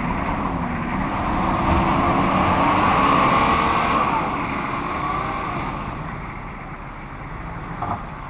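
Nissan Patrol 4x4 engines revving hard under load as one Patrol tows another through mud on a strap. The revs climb over the first few seconds and then ease off, with a short clunk near the end.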